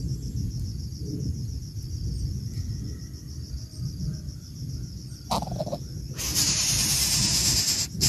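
Insects chirping in a fast, even, high pulse over a low rumble on the microphone, with a brief sharp sound about five seconds in. About six seconds in, a loud steady hiss sets in and drowns the chirping.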